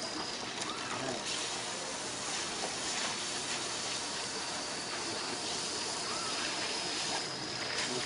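Steady rushing hiss.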